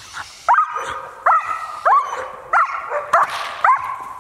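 German Shepherd barking six times in quick succession, each bark rising in pitch, as the decoy agitates it in protection training.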